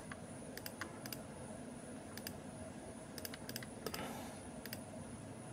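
Faint computer mouse clicks, each a quick double tick of press and release, coming irregularly a dozen or so times as picture tiles are picked. A brief soft hiss about four seconds in.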